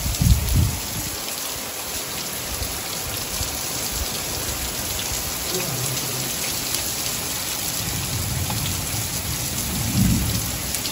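Heavy rain pouring steadily onto a flat concrete rooftop, a dense even hiss of drops, with brief low rumbles right at the start and again near the end.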